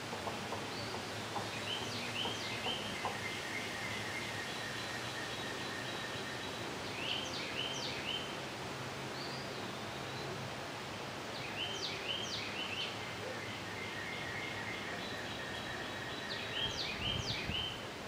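A songbird singing a short phrase of quick up-and-down whistled notes four times, about every four to five seconds, over a steady outdoor hiss.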